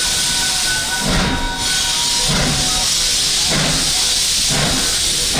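Steam locomotive working, with a steady hiss of steam and a low exhaust chuff about once a second.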